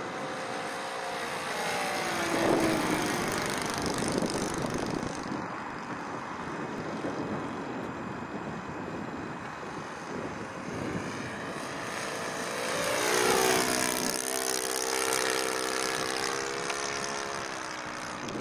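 SC91FS four-stroke glow engine of a radio-controlled model plane, turning a three-blade propeller in flight. It grows louder twice as the plane passes, most strongly about two-thirds of the way through, its pitch bending as it goes by.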